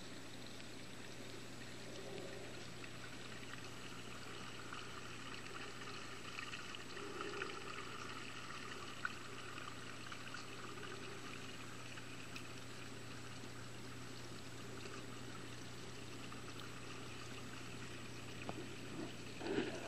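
Steady rushing water noise with a constant low hum, picked up by a camera held underwater in a koi pond. A few faint knocks come just before the end.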